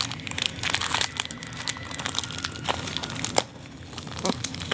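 Thin plastic packaging crinkling and rustling as it is handled, with scattered sharp clicks and a louder snap about three and a half seconds in.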